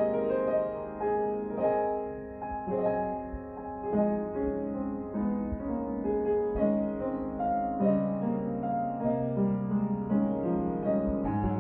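Upright piano being played: a melody over chords, with deeper bass notes coming in near the end.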